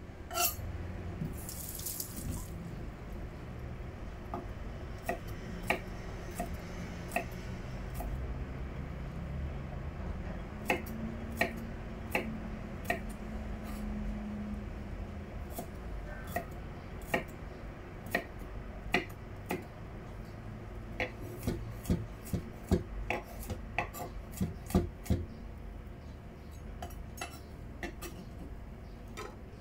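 Kitchen knife chopping garlic on a wooden cutting board: irregular sharp taps of the blade on the board, coming faster in a quick run about two-thirds of the way through, over a steady background hum.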